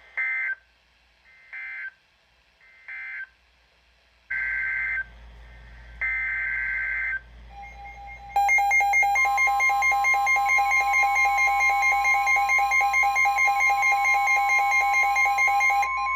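Emergency Alert System data bursts: three short screeching bursts, then two longer ones, followed about eight seconds in by a loud attention alarm, steady tones with a fast pulsing rhythm.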